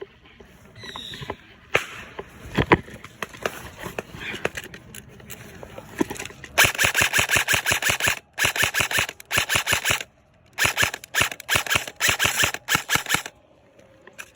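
Airsoft gun firing on full auto: several long, rapid bursts with short pauses between them, starting about halfway through. Before that there are only scattered clicks and rustling.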